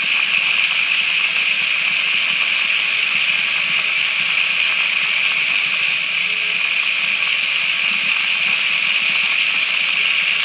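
Kitchen sink tap running at full blast, a steady rush of water pouring into a plastic tub and washing through a small pocket sluice.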